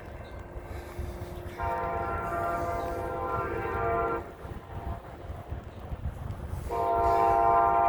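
Amtrak SC-44 Charger diesel locomotive sounding its horn in two long chord blasts, the second starting near the end and still sounding, over a low rumble.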